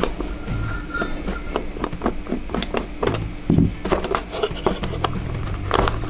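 Small clicks, taps and scraping of hard plastic as a screwdriver backs out the battery-cover screw on a digital multimeter and the cover is worked loose and slid off; the taps come thicker in the second half.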